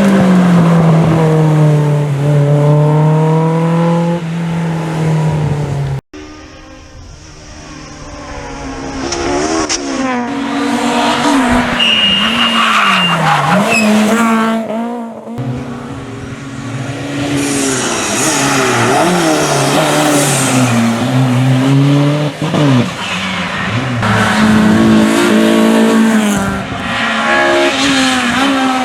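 Rally car engines revving hard and changing gear as the cars pass, the pitch climbing and dropping again and again, with some tyre squeal. The sound cuts off suddenly about six seconds in and a quieter car builds up to full volume.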